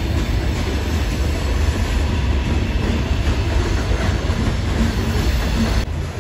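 Loaded coal hopper cars rolling past on steel wheels: a steady, loud rumble with rail noise.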